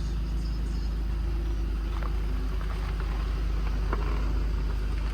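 Car engine running steadily with a low, even rumble, with a couple of faint clicks.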